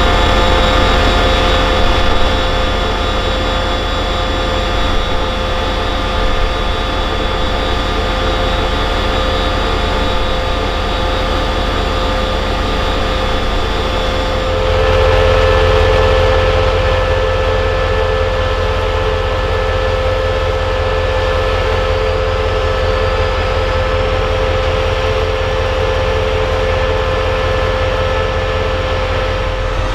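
CRRC CDA5B1 diesel-electric locomotive idling as it stands at the platform, a steady engine drone with humming tones over a low rumble. About halfway through the tones change and the low rumble grows stronger.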